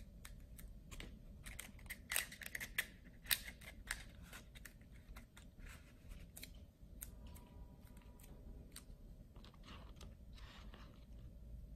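Paper crackling and rustling as rolled paper tubes are pressed together and fitted into a folded paper pistol, with a run of crisp clicks and crinkles in the first few seconds, then softer, sparser handling.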